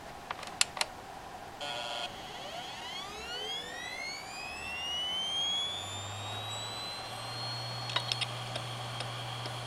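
Hitachi HDT725025VLA380 3.5-inch 7200 rpm SATA hard drive spinning up, a drive its owner thinks is close to dying. A few sharp clicks and a short buzz come first. Then the spindle whine rises in pitch for about four seconds and settles into a steady high tone over a low hum, with a cluster of clicks about eight seconds in.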